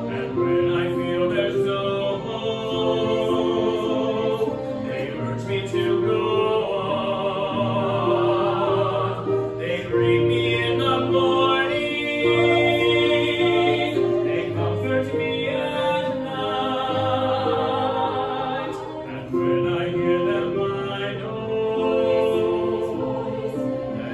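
Two men singing a song together in a live stage performance, with fiddle and piano accompaniment.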